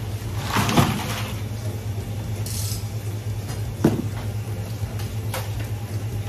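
Knocks and handling noises of fish being worked at a prep counter: a loud knock about a second in and another near the middle, with a short hiss between them, over a steady low hum.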